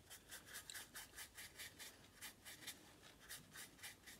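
Paintbrush scratching undiluted oil paint onto canvas in quick back-and-forth strokes, a faint rhythmic rasp at about five strokes a second.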